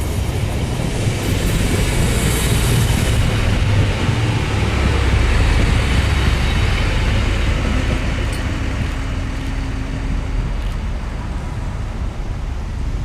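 Siemens Desiro Classic diesel multiple unit (class MQ) passing close by, its diesel engine and wheels on the rails making a steady rumble that is loudest about halfway through and then eases off as the train draws away.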